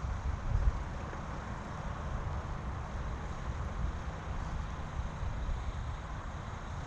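Wind buffeting the microphone: an uneven, gusty low rumble over a steady hiss.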